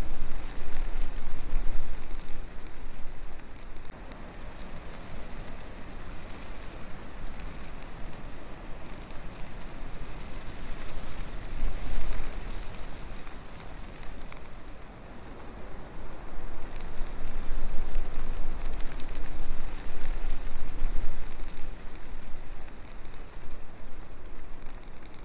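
Rushing noise that swells and drops in loudness every few seconds: wind and airflow buffeting the microphone of a quadcopter's camera in flight.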